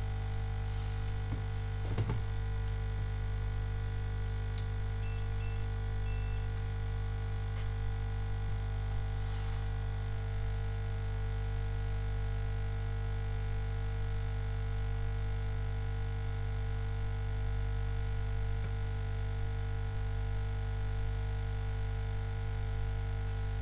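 Steady electrical mains hum with a buzz of many overtones. A few faint clicks and a short run of high beeps come around five to six seconds in.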